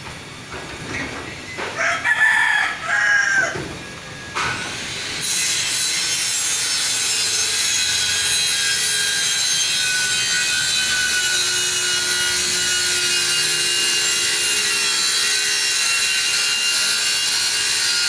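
Short irregular knocks and a few pitched calls. About four to five seconds in, a construction machine starts and runs steadily to the end: a loud hiss with a high, slightly wavering whine, like a power cutter or saw.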